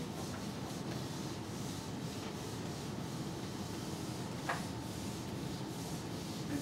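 Whiteboard eraser rubbing across a whiteboard as the board is wiped clean, faint and steady, with one short tick about four and a half seconds in.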